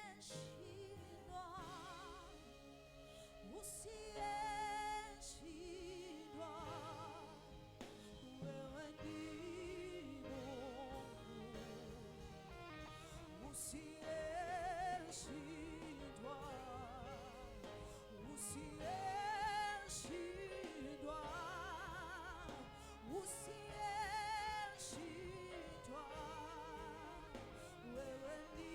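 Music: a voice singing slow phrases with a strong, wavering vibrato over instrumental accompaniment.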